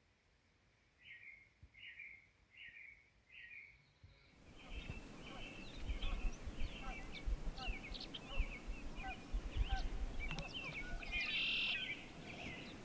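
Wild birds calling. First come four evenly spaced chirps against near silence. After an abrupt change about four seconds in, a busier mix of bird chirps and whistles sounds over a low rumbling background, with one louder call near the end.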